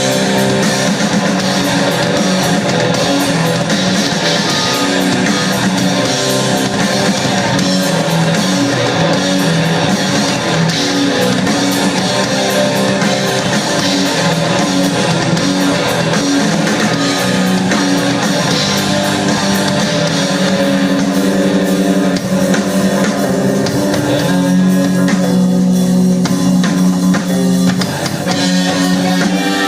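Live rock band playing loud and steady, with electric guitars, bass guitar and a drum kit.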